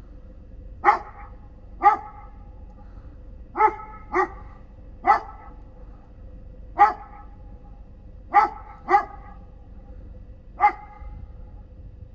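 A big dog barking, about nine single barks at uneven intervals, over the steady hum of a diesel shop furnace running.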